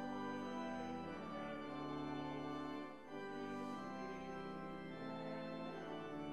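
Organ playing slow, sustained chords that change every second or two.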